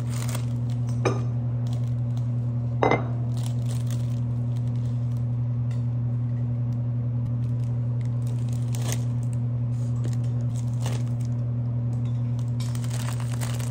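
A steady low hum runs throughout and is the loudest sound. Over it come a few sharp clinks and a crinkling plastic bag: glass candy-jar lids being handled and candies dropped into the bag.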